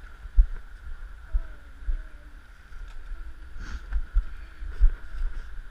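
Inflatable kayak being slid off a launch ramp into the river, the mounted camera picking up repeated low thumps and knocks from the rubber hull as it is handled, over a steady rush of river water. A sharper knock comes a little before the four-second mark.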